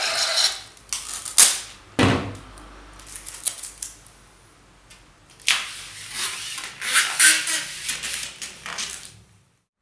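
Tape being worked by hand onto a screen-printing screen: strips rasping and tearing, then rubbed and pressed down against the mesh and frame. There is a sharp knock about two seconds in.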